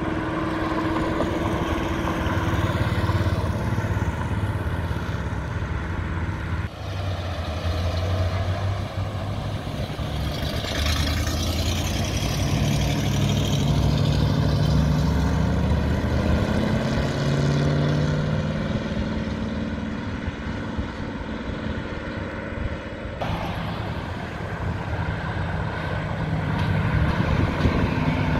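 Classic cars driving past one after another, among them a 1957 Chevrolet and a first-generation Chevrolet Camaro convertible, their engines accelerating as they pull away. Midway the engine pitch rises several times in steps as a car goes up through the gears.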